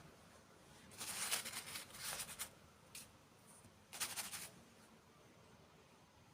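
Three short bursts of crisp, crackly crunching, like close-miked ASMR eating or crinkling sounds, with a small click between them.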